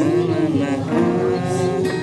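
A man singing a slow song, his voice bending on long notes, while strumming an acoustic guitar.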